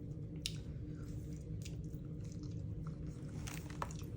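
A person chewing and biting food close to the microphone, with scattered short clicks over a steady low hum.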